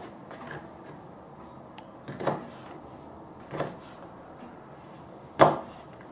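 Kitchen knife chopping spring onion on a plastic cutting board: three sharp knocks of the blade against the board a second or two apart, the last the loudest, with faint light taps between.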